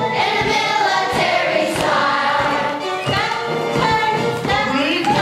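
A group of children singing a marching song in unison over recorded musical accompaniment.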